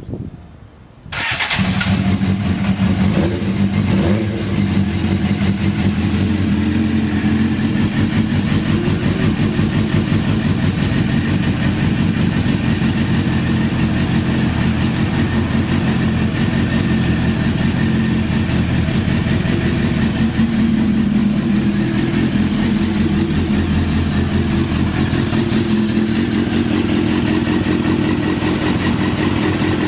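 Suzuki GSX-R600 inline-four motorcycle engine started on the electric starter, catching at once about a second in, then idling steadily. It is a healthy idle with no abnormal noise, as the seller describes it: the engine starts on the first press.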